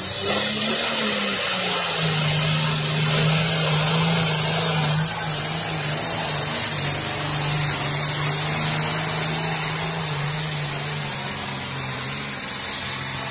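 Diesel pulling tractor at full throttle under load, dragging the weight sled: a steady, loud engine drone with a thick rushing exhaust noise. Its pitch lifts briefly in the first second, then holds and eases slightly near the end.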